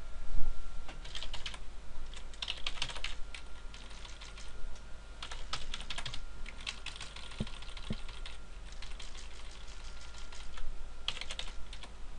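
Typing on a computer keyboard: short runs of quick keystrokes separated by brief pauses.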